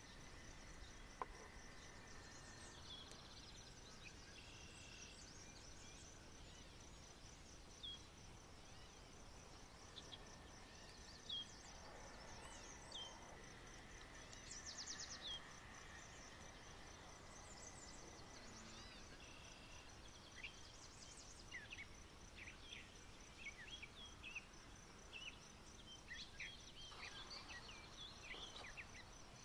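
Faint outdoor ambience: an insect keeps up a steady high trill while small birds chirp in short scattered calls, more often towards the end.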